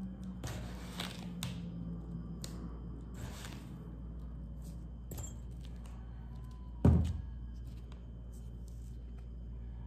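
Kitchen handling noises while a cup of brown sugar is measured out: a few short rustling scrapes, then a single loud thump about seven seconds in, over a steady low hum.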